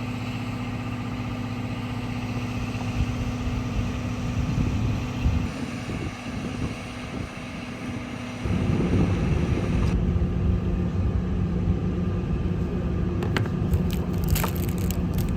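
A vehicle engine running steadily, heard from on board. Its pitch shifts twice as the footage changes, and a few light clicks come near the end.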